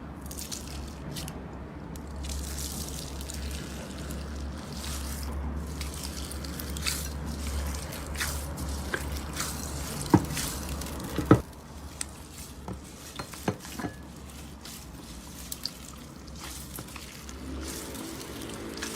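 Slime being squeezed and poked: wet squishing with scattered small pops and clicks, and two sharper pops about ten and eleven seconds in.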